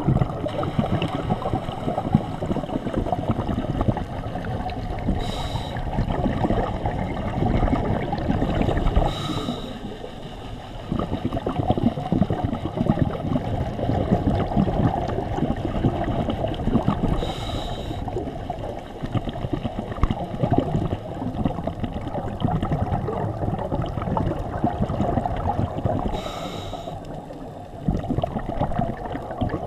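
A scuba diver's breathing heard underwater through a camera housing: a continuous muffled bubbling rumble of exhaled air, broken four times by a short hiss of inhalation through the regulator.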